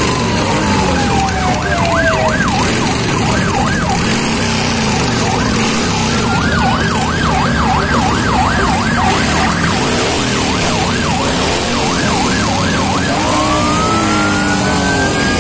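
Siren alternating between a slow wail and a fast yelp of about four cycles a second, over the low running of motorcycle engines riding past.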